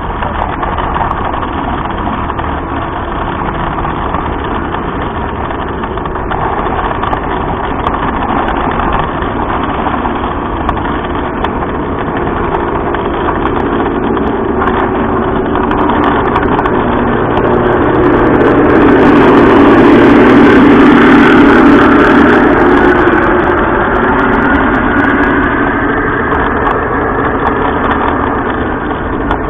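Garden-railway train running along its track with the camera riding on it: a steady mechanical running noise from its motor and wheels, swelling to its loudest a little past the middle and then easing off.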